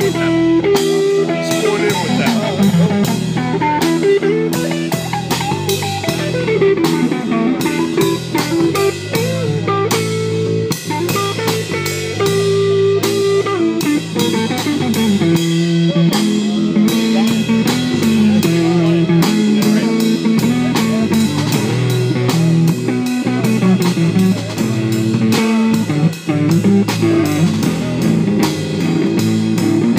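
Live blues-rock band playing an instrumental passage: guitar over a steady drum-kit beat, without vocals.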